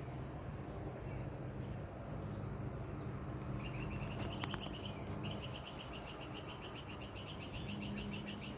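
A bird singing a rapid, evenly pulsed trill that starts about three and a half seconds in and repeats, over a low steady background hum.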